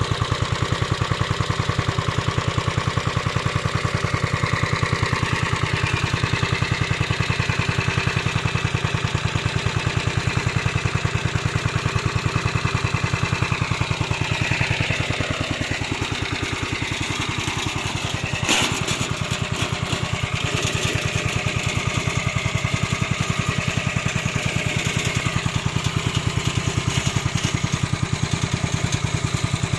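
Remote-controlled lawn mower's small engine running steadily at a fast, even beat. Its pitch dips and recovers for a few seconds just past the middle, and there is a single sharp knock about 18 seconds in.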